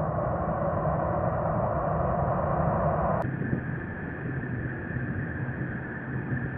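Airbus A320 jet engines running steadily as a landed airliner rolls down the runway. About three seconds in, the sound switches abruptly to a lower, duller rumble from an A320 on its takeoff run in the distance.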